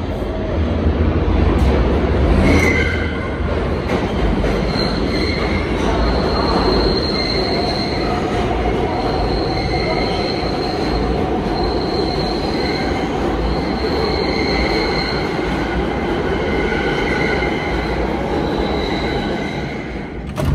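New York City subway R160B train running between stations: a steady rumble of wheels on rail, with high-pitched wheel squeal that comes and goes. A short knock near the end as the noise eases off.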